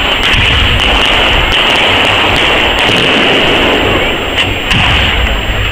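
Fireworks crackling: a loud, dense, rapid crackle of many sharp pops, with low rumbles underneath.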